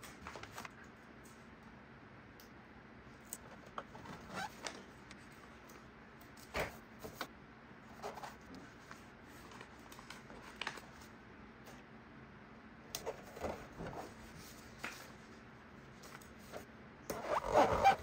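Hands handling paper sticker sheets and a plastic toy playset while putting decals on: scattered soft rustles and light clicks every second or two, with a louder burst of paper rustling near the end.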